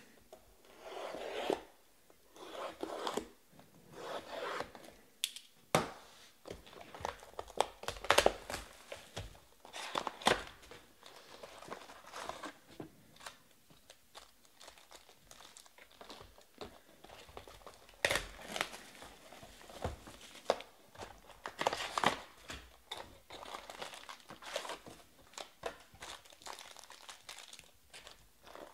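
Plastic shrink wrap and foil trading-card packs crinkling and tearing as sealed card boxes are unwrapped and the packs pulled out, in irregular rustles with sharp crackles.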